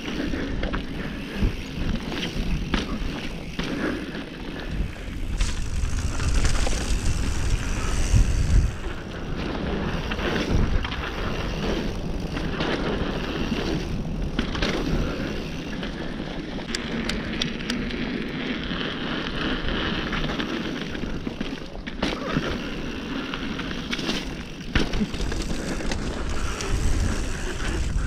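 Mountain bike ridden fast down a dirt trail: tyres rolling and crunching over dirt under a steady rumble of wind on the camera microphone, with frequent clicks and knocks as the bike rattles over bumps. The rumble is heaviest a few seconds into the descent.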